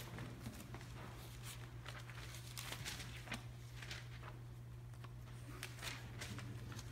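Faint footsteps and small rustling clicks of a man moving about, over a steady low hum.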